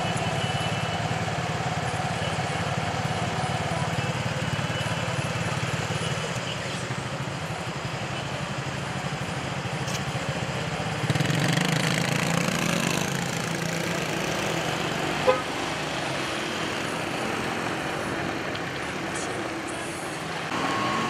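Town street traffic: a steady hum of car engines running and passing, louder for a couple of seconds about eleven seconds in, with one sharp click about fifteen seconds in.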